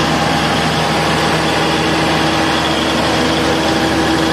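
Cummins 500 kVA silent diesel generator set running steadily inside its acoustic canopy, a constant engine drone with a steady hum. It is on a water-load trial, with a water-resistance load bank applied.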